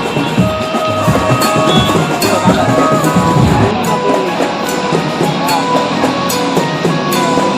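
Background music from a banjo-party band: a held, stepping melody line over a drum kit beating a steady rhythm.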